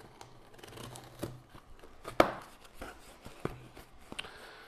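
Folding knife slicing and scraping through packing tape on a cardboard box, with the tape tearing and the cardboard rustling, and one sharp crack about two seconds in.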